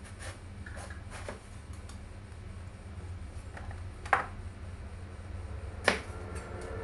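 Broad-bladed kitchen knife chopping eggplant on a wooden chopping block: a few light knocks in the first second or so, then two louder knocks about four and six seconds in. A steady low hum runs underneath.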